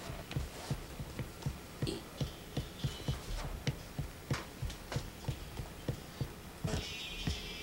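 Steady thumping beat of a soundtrack drum, about three beats a second, with a hiss coming in near the end.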